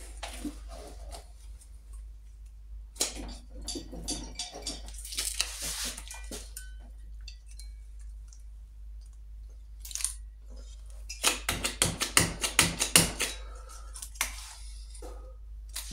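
The alloy cylinder head of an 850 Norton Commando being lifted and rocked by hand on its studs and barrels while the pushrods are worked into the rockers: metal parts clinking and knocking. A quick rattling run of clacks about three-quarters of the way through is the loudest part.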